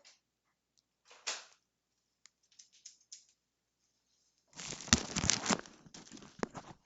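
Handling noises: scattered light clicks, then about four and a half seconds in, a louder stretch of rustling and knocking that lasts about two seconds.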